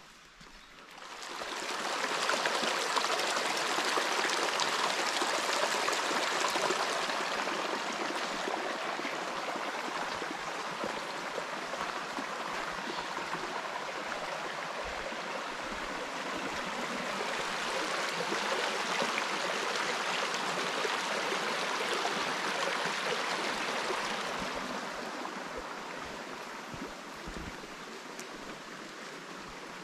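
Mountain stream rushing through a rocky gorge: a steady wash of water noise that rises quickly about a second in, swells again midway and eases off near the end.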